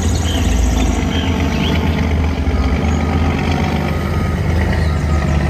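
Heavy multi-axle dump truck's diesel engine running steadily with a low rumble.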